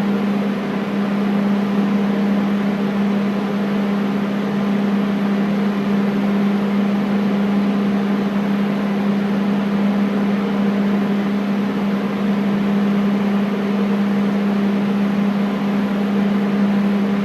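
Air conditioner running steadily: a constant low hum over an even rush of air.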